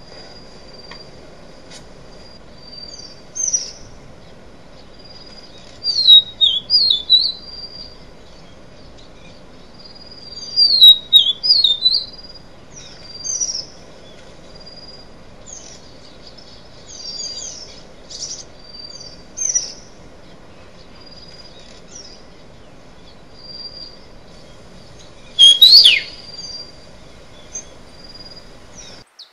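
Small songbirds chirping and singing in quick high whistled phrases that sweep up and down. The loudest bursts come about six, eleven and twenty-five seconds in. A thin steady high tone sounds faintly between them.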